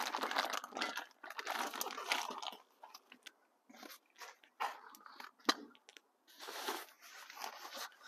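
Plastic bags and stored gear rustling and crinkling as they are handled and moved, in uneven bursts with short pauses, and a sharp knock about five and a half seconds in.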